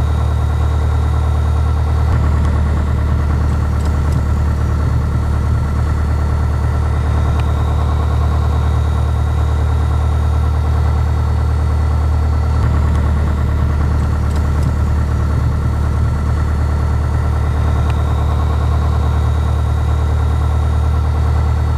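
Piper PA-28-161 Warrior's four-cylinder Lycoming O-320 engine and propeller running steadily, heard from inside the cockpit as an even, unchanging drone.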